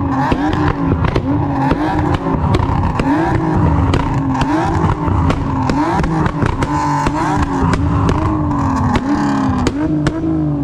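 A car engine revved over and over, its pitch climbing sharply and sinking back about once a second, with short sharp cracks throughout.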